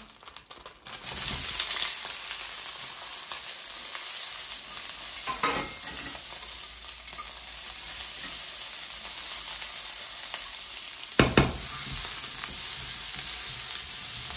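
Vegetables dropped into hot oil in a frying pan, starting a steady sizzle about a second in that keeps going as they fry and are stirred. A utensil knocks against the pan twice, the second knock the loudest sound.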